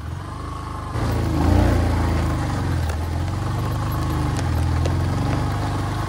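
Motorcycle engine running, revving up about a second in and then holding a steady higher speed as the bike climbs a muddy off-road track.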